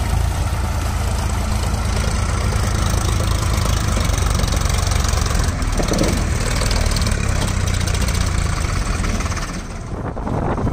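Sonalika DI-47 RX tractor's diesel engine running with a steady, deep note. About nine and a half seconds in, the steady note gives way to a rougher rushing noise.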